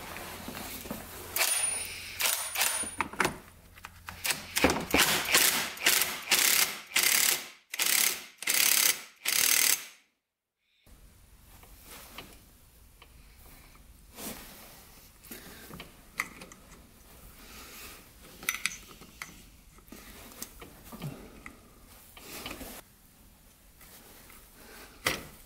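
A wrench ratcheting in short, repeated strokes as the clutch hub nut of a 2005 Yamaha YFZ450 engine is torqued down, over about ten seconds. After a break, quieter scattered clicks and taps of metal tools on the clutch.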